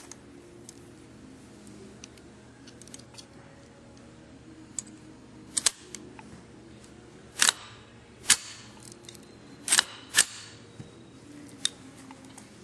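Metallic clicks and clacks of a Razorback .22LR belt-fed AR15 conversion being loaded by hand: the cartridge belt is fed into the action and the top cover handled. Light ticks give way to a few sharp clacks in the second half.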